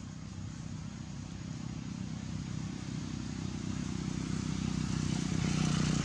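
A motor vehicle's engine hum, steady in pitch and growing gradually louder.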